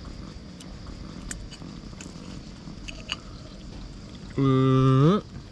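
A man tasting food: a few faint clicks over steady background noise, then about four seconds in a loud closed-mouth "mmm" of approval, held on one low note and rising at the end.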